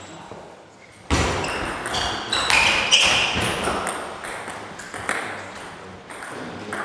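Table tennis rally: the celluloid ball clicking off paddles and the table again and again, with a sudden loud thump about a second in and a few short high squeaks.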